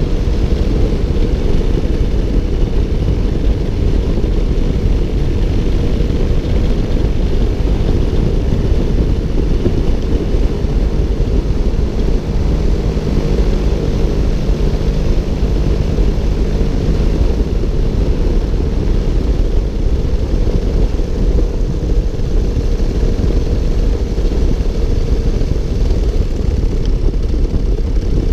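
Paramotor engine and propeller running steadily at cruise, with wind rushing over the microphone.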